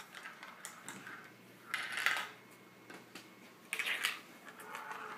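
Glass marbles and hard plastic marble-run pieces clattering: two short rattling bursts about two seconds apart, with light clicks between.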